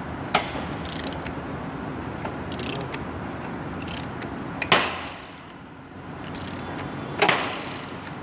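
Toyota 2GR-FE V6 being turned over by hand with a wrench on the crankshaft during timing-chain alignment: steady mechanical working noise with ratcheting clicks and sharp metallic knocks, the loudest about a third of a second in, near five seconds and just after seven seconds.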